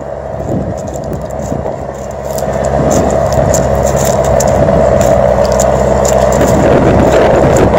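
John Deere 6420 tractor's four-cylinder diesel engine running steadily under load while pulling a plough, with faint rattles. The sound grows louder about two to three seconds in.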